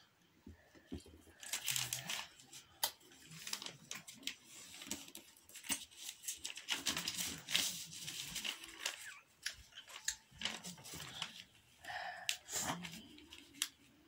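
A sheet of paper rustling and crinkling as it is unfolded, refolded and pressed into creases by hand, in irregular swishes and crackles starting about a second and a half in.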